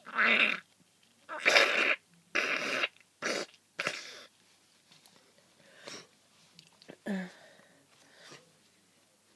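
A person with a cold blowing a congested nose hard: about five loud, noisy blasts in the first four seconds, then a few much fainter sniffs and breaths.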